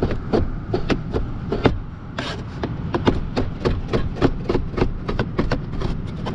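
A meat cleaver chopping fish on a plastic cutting board, quick even chops about four a second with a short break about two seconds in, cutting the fish up for berley.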